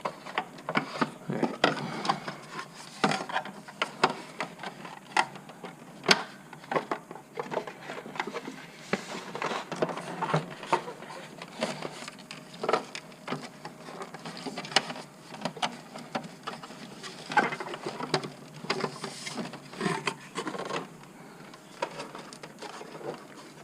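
Hands working on parts in a car's engine bay: irregular clicks, taps and rubbing as pieces are handled and fitted back together.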